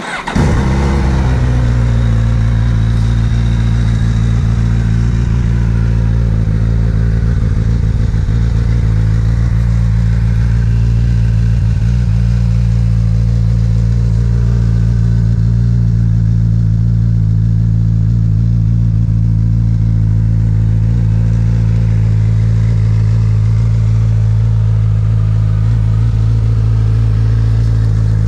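Suzuki GSX-S1000F's 999 cc inline-four starting from cold. It catches right at the start, settles within half a second, then idles steadily.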